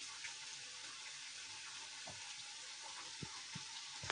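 Potato-and-semolina cutlets deep-frying in hot oil: a steady sizzle with small crackles. A few soft low thumps come near the end.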